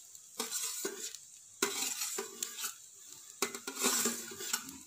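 A utensil scraping grated boiled egg out of a bowl into a kadai of rice, with several sharp clinks of metal against the bowl and pan.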